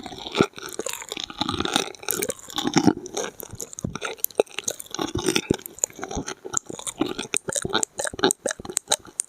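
Close-miked ASMR mouth sounds: wet chewing with many quick clicks and smacks, coming faster in the second half.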